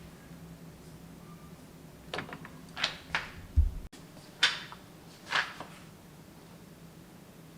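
Packaging being handled while unboxing: a cluster of short scrapes and rustles from about two to five and a half seconds in, with a dull low thump just before an abrupt cut, over a steady low hum.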